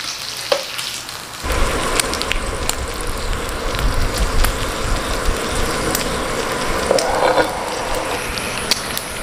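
Meat sizzling in oil on the grill plate of a small electric steamboat griller, a steady hiss with sharp crackling pops. It jumps suddenly louder and fuller about a second and a half in.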